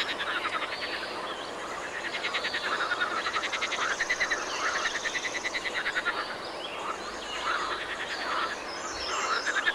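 Frogs croaking in a chorus from the pond: long runs of rapid rattling pulses, one run after another, growing weaker over the last few seconds.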